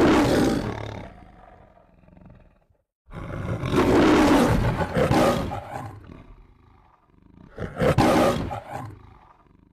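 The MGM logo lion roaring: three long roars, one at the start, one about three seconds in, and a shorter one near the end.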